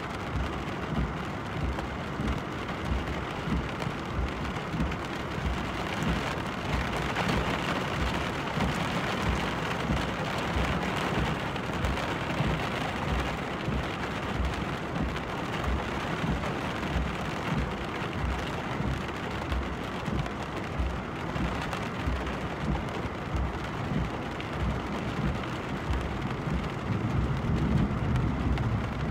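Steady hiss of rain falling on a car, with a low rumbling underneath that swells near the end.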